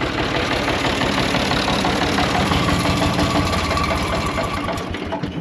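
Diesel tractor engine running steadily, with dense, rapid firing pulses. It cuts off abruptly near the end.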